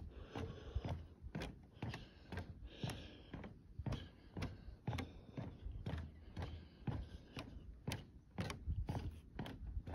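Footsteps on a wooden boardwalk at a steady walking pace, about two knocking steps a second, over a low rumble.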